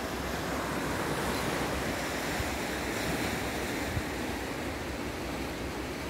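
Small sea waves washing in over a stony shore: a steady rush of surf that swells a little in the first few seconds.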